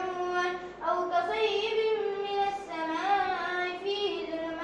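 A boy's voice reciting the Quran in melodic chant during Taraweeh prayer, drawing out long notes that rise and fall, with a short pause for breath about a second in.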